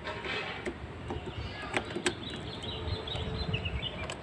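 Quiet outdoor background with a few sharp light clicks in the first half, and a bird chirping in short notes in the second half.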